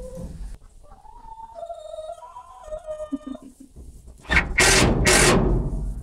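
Hens giving soft, drawn-out wavering calls and a few short low clucks. Near the end come two loud rushes of noise, about half a second apart.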